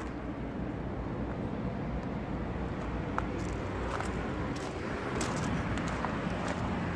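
Steady outdoor background noise with a low vehicle rumble, with a few faint clicks.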